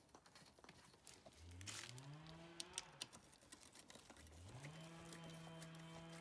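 A cow mooing twice, faintly: each moo slides up into a long held tone, and the second is held longer than the first. Light clicks and rustles sound between them.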